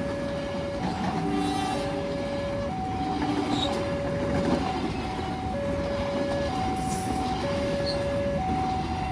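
Railway level-crossing warning alarm sounding a two-tone signal, alternating between a lower and a higher tone about once a second, the usual warning that a train is approaching. Steady background rumble throughout.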